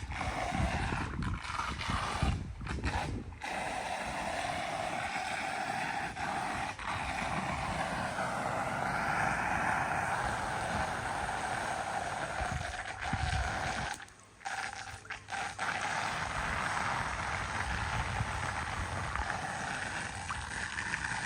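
Floodwater rushing and gurgling steadily down a street storm drain, with a few brief breaks.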